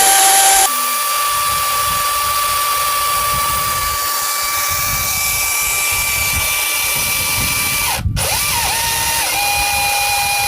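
DeWalt DCM575 FlexVolt cordless chainsaw running steadily as it is pressed through a log, an even electric motor whine with no engine note. The level drops slightly less than a second in, and the saw cuts out for a moment about eight seconds in before running again.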